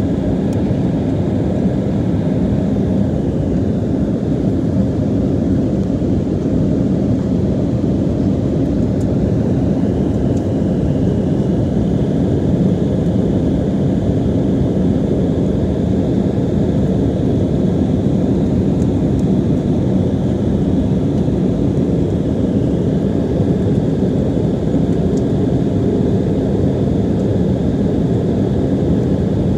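Steady cabin noise of a jet airliner climbing after takeoff: a loud, even rush of engine and airflow, with a faint high whine above it.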